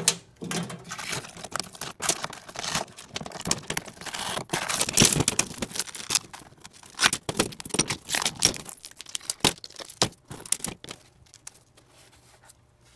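Shattered boron carbide ceramic tile of an eSAPI armour plate being pried up by hand from its polyethylene backing: a dense run of crackling and clicking as the fragments break loose and knock together, thinning out after about nine seconds.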